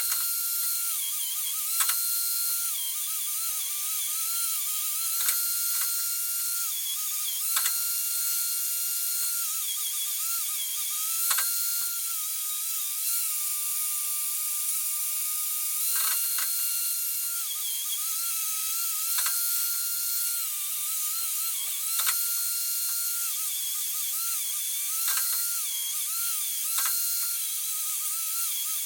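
Power grinder working steel bracing tube. Its whine holds a steady pitch while free-running, then drops and wavers each time it is pressed into the metal, with a sharp click at many of the changes.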